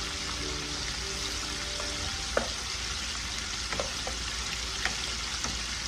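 Breaded chicken deep-frying in oil in an electric deep fryer: a steady sizzle. A few sharp metal clicks come as a metal spoon nudges the pieces in the fry basket to keep them off the heating elements.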